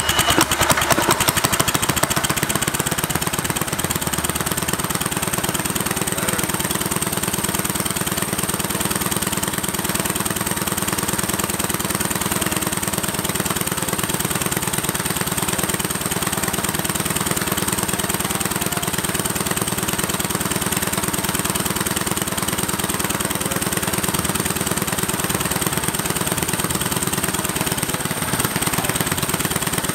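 Predator 212 single-cylinder go-kart engine running steadily with a small turbocharger plumbed onto its exhaust, on a first test run of the turbo's oil system. It comes up louder in the first couple of seconds, then holds an even pace.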